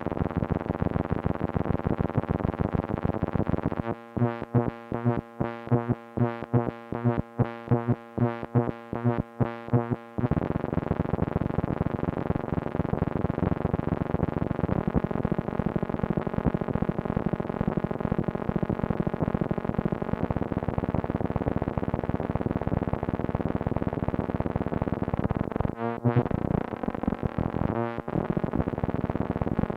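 Moog Mother-32 analog synthesizer sounding a dense pitched tone rich in overtones, modulated by a Comdyna GP-6 analog computer solving the chaotic Lorenz equations. From about four seconds in it stutters on and off in quick, irregular pulses for some six seconds, then sounds unbroken, with two brief cut-outs near the end.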